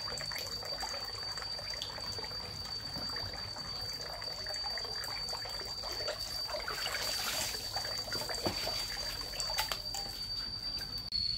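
Water trickling and splashing, with small clicks and knocks, over a steady high-pitched whine.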